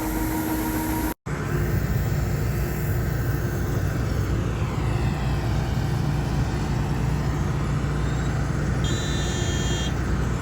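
A heavy vehicle engine running steadily with a low drone. The sound cuts out sharply for a moment about a second in.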